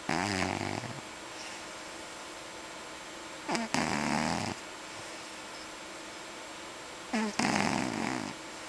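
Russian Blue cat snoring in its sleep: three snoring breaths about three and a half seconds apart, each a short catch followed by a rough breath lasting about a second.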